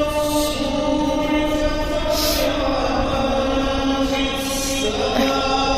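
Religious chanting by a single voice in long held notes, the pitch stepping between sustained tones.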